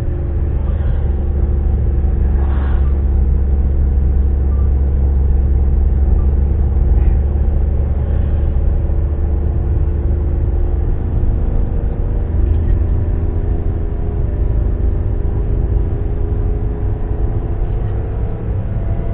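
Car engine and road rumble heard from inside the cabin while driving: a deep steady drone with the engine note drifting slowly down and back up in pitch.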